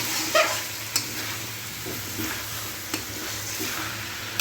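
Chicken pieces in a spiced curd (yogurt) masala sizzling steadily in a pan while being stirred and fried down, with a few sharp clicks of the spoon against the pan.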